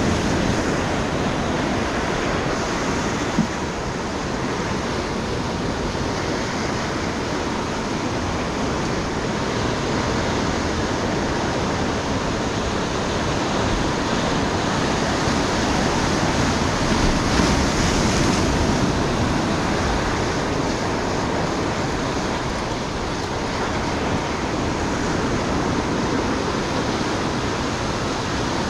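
Ocean surf breaking and washing over flat shoreline rocks, a steady rush of waves, with one short knock about three seconds in.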